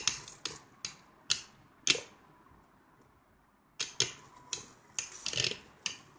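Two spinning Beyblade tops clashing in a taped cardboard stadium: a run of sharp clacks, a lull of nearly two seconds in the middle, then another run of clashes.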